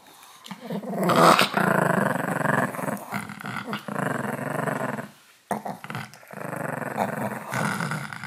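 Two long-haired chihuahuas growling as they tug at a rubber duck toy between their jaws, a long rough growl that breaks off briefly about five seconds in and then starts again.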